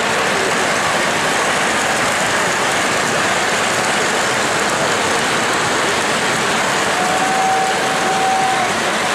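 O-gauge three-rail model trains running on the layout, a steady rolling noise from the wheels on the track. A steady tone sounds for about a second and a half near the end.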